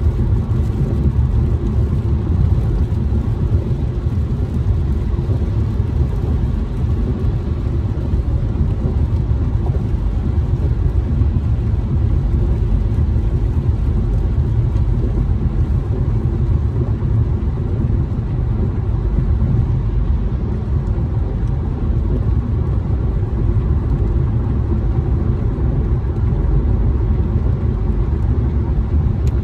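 Steady low rumble of a car driving on a rain-soaked freeway, heard from inside the cabin: engine and tyres on wet pavement.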